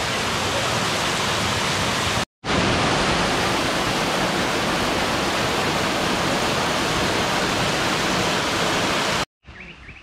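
Steady, loud rush of a small waterfall pouring down onto rocks. It drops out for a split second about two seconds in. Near the end it cuts to a much quieter scene with birds chirping.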